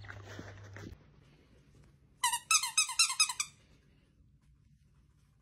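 Plush squeaky toy squeaking rapidly, about eight high squeaks in a little over a second, as a puppy tugs on it. A brief scuffle is heard in the first second.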